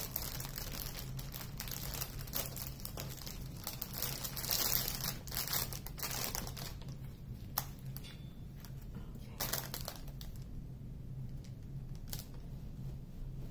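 Plastic bags crinkling and rustling as small zip-lock bags of diamond painting drills are handled inside a larger clear plastic bag. The rustling is busiest for the first six seconds, then comes in a few separate sharp crinkles.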